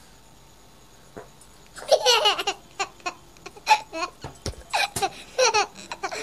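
A baby laughing and giggling in a string of short bursts, starting about two seconds in.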